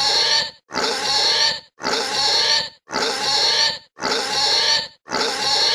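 Pig squealing over and over, one high-pitched squeal about every second, each lasting just under a second with a short break between.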